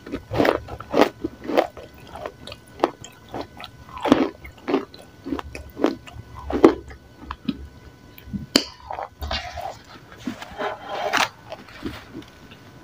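Close-miked biting and chewing of a brittle, porous grey flat sheet of food. Sharp crunches come about every half second, then a denser crackly chewing near the end.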